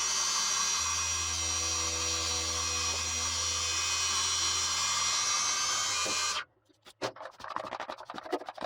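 Small milling machine's spindle running steadily while an end mill cuts out the bushings in a compressor piston; it stops suddenly about six seconds in, followed by a few short clicks and rattles.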